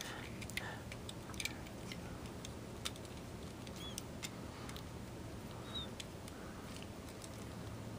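Scattered faint plastic clicks and handling noise as the parts of a Takara Tomy Masterpiece MP-19 Smokescreen transforming figure are flipped and folded into place, over a low steady hum.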